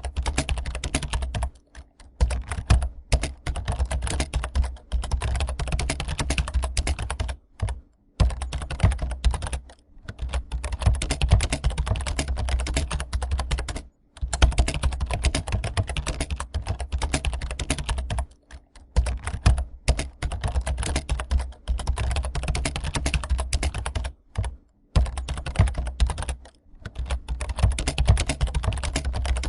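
Fast, continuous typing on a computer keyboard, a rapid run of key clicks broken by short pauses every few seconds.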